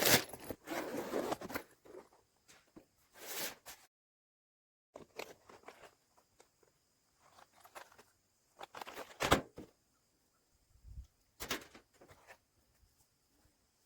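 Scattered handling noises: short knocks, clicks and rustles of a plastic tool case and kit being handled. There is a moment of dead silence about four seconds in, and the sharpest knock comes about nine seconds in.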